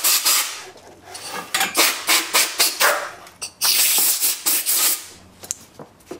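Hand-sanding the edge of a homemade water-cooled Briggs & Stratton cylinder head: quick back-and-forth scratching strokes of abrasive on the head, in short runs, stopping about five seconds in.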